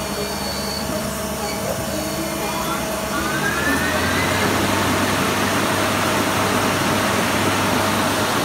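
Mazak INTEGREX 400 SY lathe's main spindle and chuck spinning up, a rising whine from about two to four seconds in, then running steadily at speed with a louder rushing noise.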